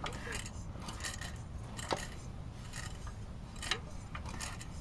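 Scattered light metallic clicks and clinks from handling the parts of a small Briggs & Stratton lawn-mower engine with its cylinder head off, with a couple of sharper ticks about two seconds in and near four seconds in.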